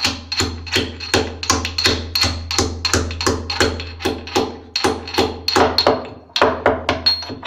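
Pestle pounding a turmeric root in a mortar: a fast, steady run of sharp strikes, about three to four a second, with a short break a little after six seconds in.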